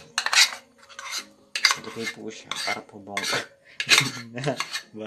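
Spoon stirring pancake batter in a ceramic bowl, with repeated scraping strokes against the bowl.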